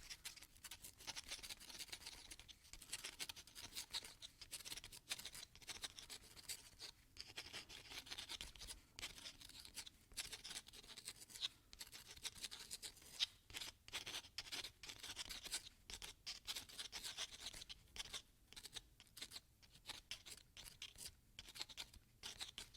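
A pen writing on paper: faint, quick scratching strokes that follow one another with short pauses between them.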